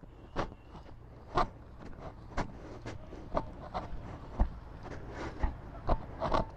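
Footsteps walking at a slow, even pace, about one step a second, over a low steady background rumble.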